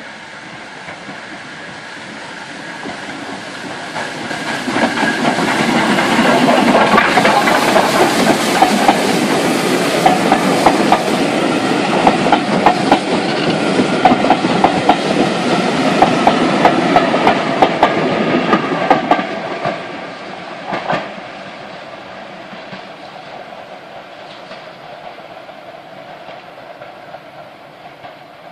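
Steam-hauled passenger train passing close by: the sound grows from about three seconds in, then the coaches' wheels clatter over the rail joints for some fifteen seconds, and it fades after about nineteen seconds as the train draws away, with one last clack a little later.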